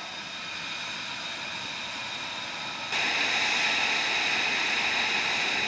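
F-35 fighter's jet engine running steadily: a rushing roar with a high turbine whine, stepping up louder about three seconds in.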